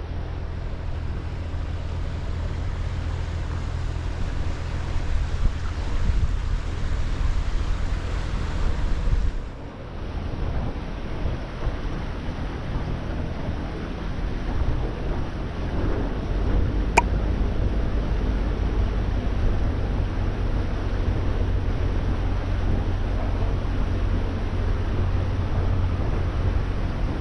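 Sailboat's Volvo Penta inboard engine running steadily under way, with wind and water noise over it. A single sharp click comes about two-thirds of the way through.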